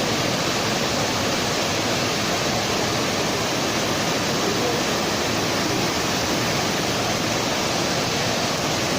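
Blast furnace plant noise: a steady, even rushing roar with no distinct tones or knocks.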